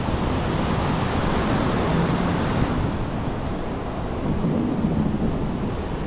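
Ocean surf breaking and washing up a sandy beach, with wind on the microphone. The hiss of the wash is strongest for the first few seconds and eases off about halfway through.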